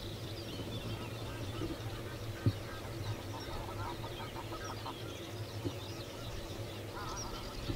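Birds calling by a reed-fringed water: many short high chirps throughout, with a quick series of lower clucking calls about two seconds in and again near the end. A steady low hum lies underneath.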